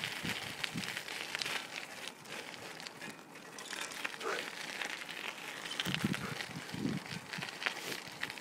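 Rustling and crackling handling noise from an iPhone held on a moving bicycle with duct tape, the tape and mount rubbing against the microphone as the bike jolts along.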